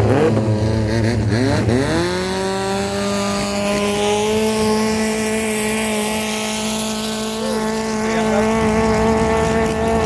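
Long-tail racing boat's engine: the revs rise and fall, then climb about two seconds in and hold high and steady.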